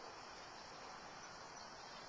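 Faint steady hiss of background noise, with no engine or other distinct event.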